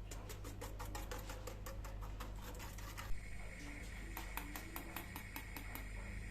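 A fast run of light, sharp clicking taps, about six a second, broken by one louder knock about three seconds in, then resuming. A steady high hum comes in at the same point.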